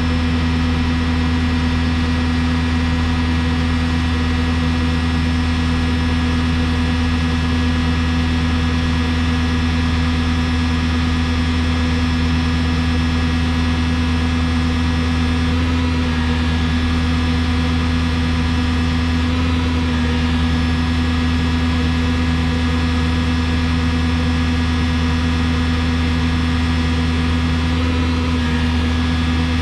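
Yale 175 VX forklift's diesel engine running steadily at raised speed, held there to heat the exhaust until the NOx sensors warm up and read.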